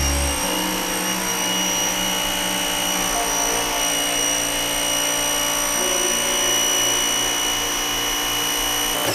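Active VE52 electric pressure washer running on a test bench with a steady, loud high whine. Right at the end the motor cuts out and the whine falls away as it winds down: the auto stop shutting the unit off, which its revised auto cutoff valve is meant to trigger.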